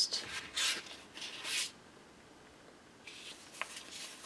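Paper sticker sheets rustling as they are leafed through by hand: three quick swishes in the first two seconds, a short pause, then fainter rustling with a small click.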